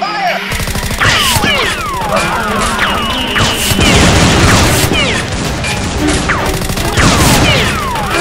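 A busy edited sound-effects track: rapid gunfire-like shots, crashes and impacts, with many quick falling whistle tones overlapping, over background music.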